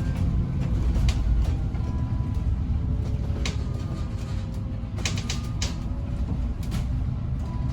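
Interior sound of a London bus on the move: a steady low rumble with a faint whine that glides slowly in pitch, and scattered clicks and creaks from the bodywork, several of them together about five seconds in.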